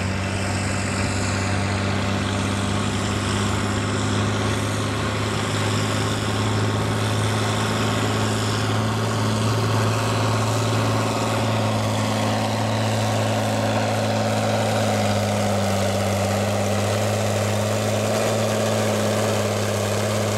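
John Deere row-crop farm tractor's diesel engine running at a steady low speed, its pitch unchanging, as it comes close with a weight-transfer sled in tow.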